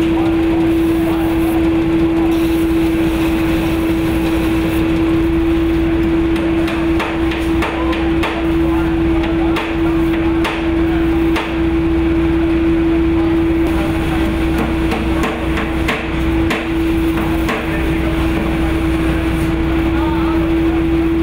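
Belt-driven drum sander running with a steady hum, powered through pulleys from a diesel engine, as a curved wooden chair-back slat is worked against the spinning sanding drum. From about six seconds in, irregular sharp knocks come and go for several seconds.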